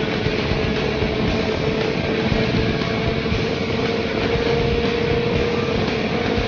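Honda CBR 650F's inline-four engine running at a steady cruising speed under heavy wind rush on the microphone, its pitch creeping slightly higher about four seconds in.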